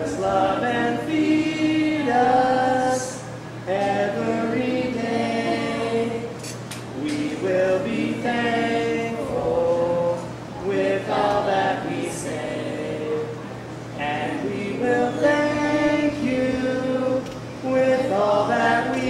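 A group of boys singing a song together, unaccompanied, in phrases of a second or two. A steady low hum runs underneath.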